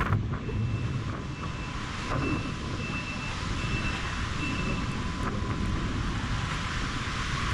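Strong wind blowing on the microphone, a steady rumbling hiss, over choppy water. A faint high beeping tone comes and goes in short pieces for the first few seconds.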